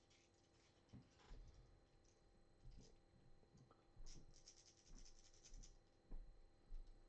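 Near silence: room tone with a few faint scattered clicks and a brief scratchy rustle about four seconds in.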